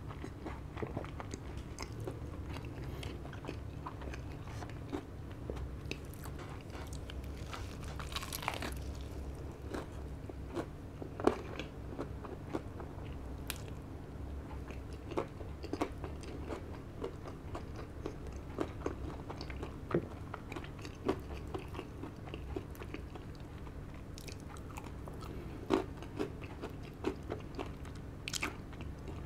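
Close-up chewing and crunching of a KFC Double Down's crispy fried chicken fillets, with irregular crisp crunches throughout, the loudest about eleven seconds in.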